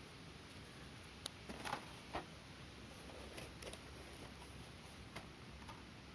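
Firewood crackling faintly in a fire pit: a few scattered snaps over a low steady hiss.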